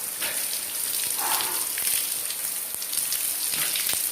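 Backyard shower running, water spraying and spattering steadily with a constant crackling hiss.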